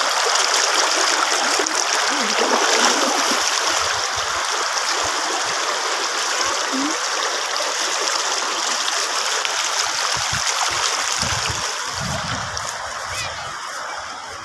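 Shallow river rushing and splashing over rocks, a steady hiss that grows somewhat fainter over the last few seconds.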